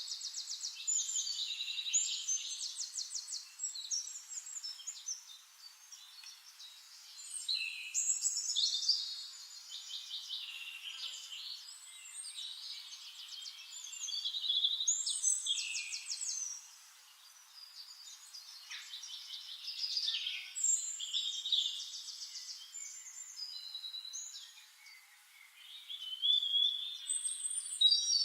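Songbird singing: bursts of fast, rapidly repeated trilled notes and chirps, a new phrase every several seconds.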